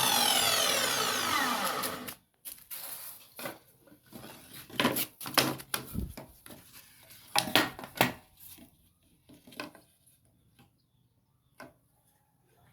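Circular saw motor switched off and spinning down, its whine falling in pitch and dying out about two seconds in. Then a run of sharp wooden and metal knocks and clicks from handling the work and tools.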